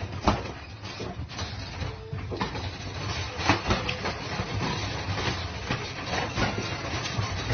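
Two cats tussling inside a wire pet crate: the wire panels rattle and clank under repeated knocks and thumps as they scuffle against the bars.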